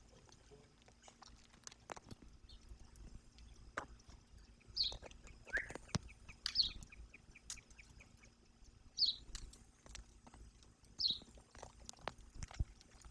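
Birds chirping: four short, high, falling chirps about two seconds apart, with a lower call and a brief rattle between them. Scattered sharp clicks and taps run throughout over a low rumble.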